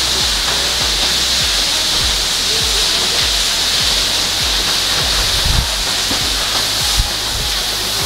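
Steady rush of a tall waterfall plunging into its pool, with music playing underneath.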